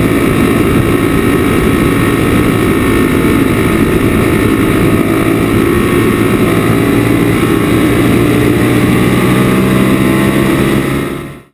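Sport motorcycle engine running at steady high revs along a track straight, heard from an onboard camera on the bike. It fades out quickly just before the end.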